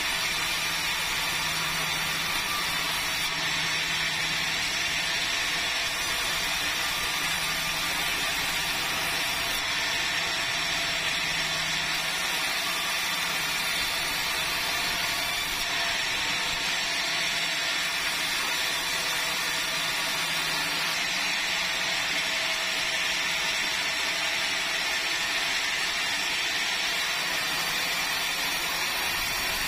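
Chainsaw running at full throttle, cutting steadily through a red meranti log without a break.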